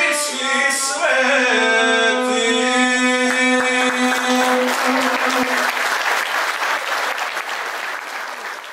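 A male voice singing to the bowed gusle holds the last notes of an epic song, which end about five seconds in. Audience applause follows and tails off near the end.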